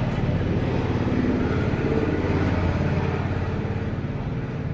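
An engine running steadily, easing off slightly near the end.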